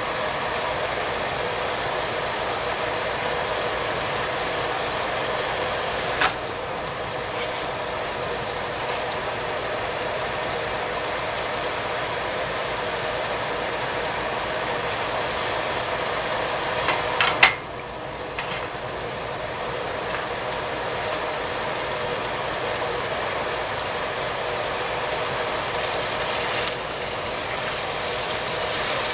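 Breaded mullet deep-frying in vegetable oil in a pot: a steady sizzle. A short click about 6 seconds in and a sharper, louder one about 17 seconds in.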